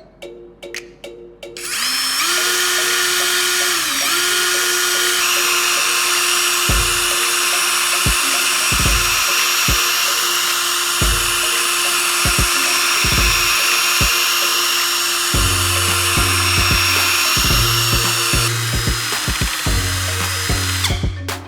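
A high-speed electric motor tool runs loudly with a steady whine. It spins up about two seconds in, sags briefly once and stops near the end.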